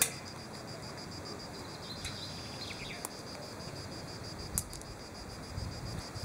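Insects chirring steadily in a high, finely pulsing drone, with a few sharp clicks, the loudest right at the start.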